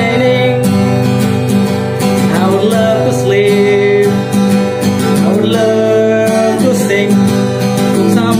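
A man singing a slow song while strumming an acoustic guitar.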